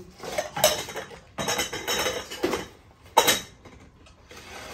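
Dishes clinking and scraping as a small ceramic bowl and metal dish are handled, in a run of clatters with a sharp knock about three seconds in.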